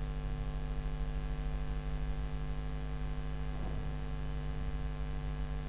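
Steady electrical mains hum with a stack of buzzing overtones, picked up in the recording chain of a desktop screen recording.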